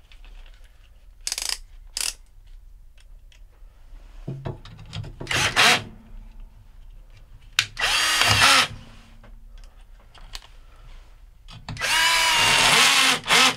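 Power drill driving the screws back into the motor-to-transmission clamps of a Whirlpool direct-drive washer. It runs in several separate short bursts, the longest near the end lasting about a second and a half.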